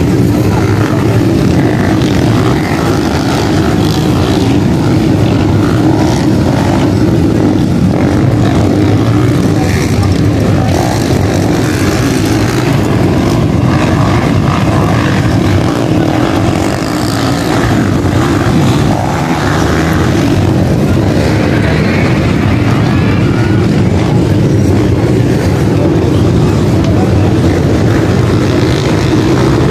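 Dirt bikes racing on a motocross track, their engines revving hard in a loud, continuous, unbroken drone.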